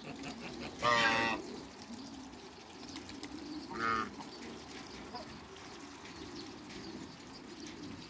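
Goose honking twice off-screen: a loud honk about a second in and a shorter one about four seconds in.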